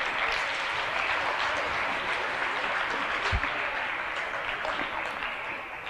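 An audience of school students clapping, a dense steady applause that tails off near the end. A brief low thump sounds about halfway through.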